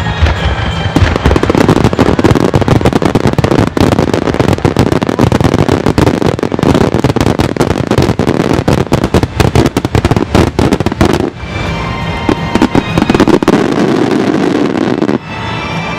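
A massed fireworks barrage: many shells bursting in rapid succession, a dense run of bangs and crackling that breaks off about eleven seconds in. A steadier crackling rush follows and cuts off suddenly near the end.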